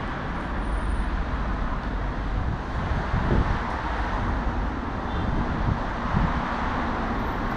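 Steady outdoor noise of road traffic on a nearby street, with wind on the microphone and a few low thumps.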